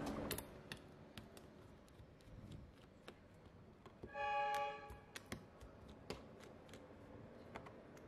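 Faint clicks and small taps of a precision screwdriver working the screws out of a Samsung phone's plastic midframe. About four seconds in, a short pitched tone sounds for about half a second.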